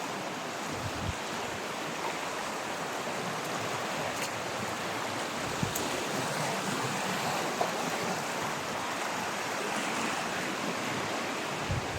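A river flowing steadily, a continuous rush of water, with a couple of brief low thumps near the start and the end.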